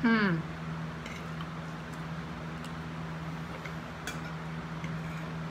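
A brief falling vocal sound at the very start, then a steady low hum with a few faint clicks of forks on plates.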